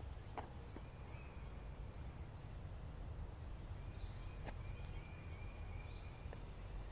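Outdoor background with a steady low rumble, faint bird chirps and whistles now and then, and a few sharp clicks.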